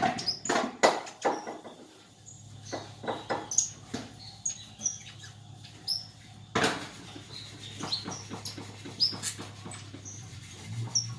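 Male canary in heavy molt moving about its cage: a run of sharp knocks and wing flutters, with short high chirps between them.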